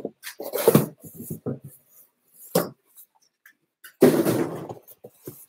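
Cardboard box and its packing being handled: scattered rustles, scrapes and knocks, with a louder rustle about four seconds in.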